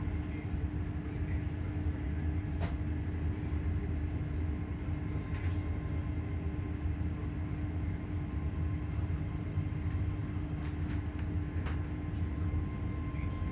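Hitachi Class 385 electric multiple unit running at steady speed, heard from inside the carriage: a low rumble of wheels and bogies under a steady motor hum, with a faint higher whine coming in about halfway and a few sharp clicks and rattles.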